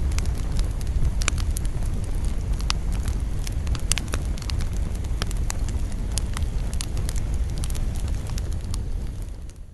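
Wood campfire burning: a steady low rumble with frequent sharp crackles and pops at irregular intervals, fading out near the end.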